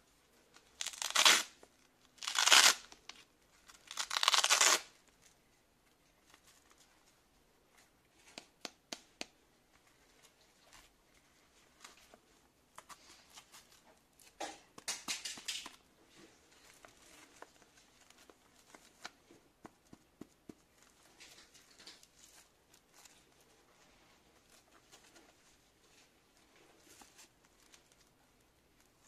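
Hook-and-loop (Velcro) wrist strap on a padded glove being ripped open, three rips in quick succession in the first five seconds and again about fifteen seconds in, with soft rustling and clicks of the glove being handled in between.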